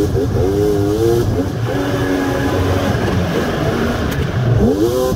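Vehicle engine running and revving, its pitch rising near the start, holding with a slight waver, and rising again near the end, over a steady low rumble.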